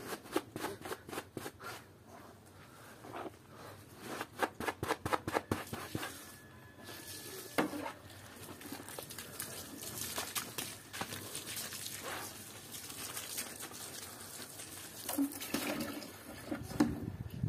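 A bristle hand brush scrubbing a soap-soaked plush toy in foamy water, with quick runs of brush strokes in the first two seconds and again about four seconds in. After that comes wet squishing and sloshing of the sudsy foam.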